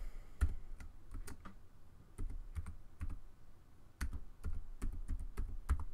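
Computer keyboard keys being typed one by one, entering a password: single clicks in short irregular runs, with brief pauses between runs.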